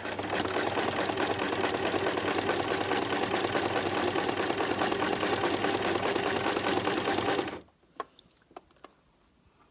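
Electric home sewing machine running steadily at speed, its needle stitching a seam through fabric, then stopping abruptly about three-quarters of the way through, followed by a few light clicks.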